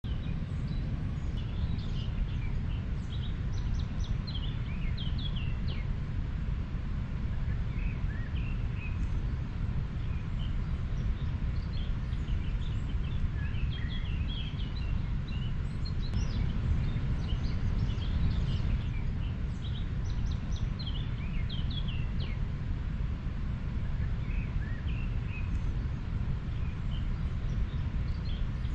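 River flowing with a steady low rush, while small birds chirp and call throughout.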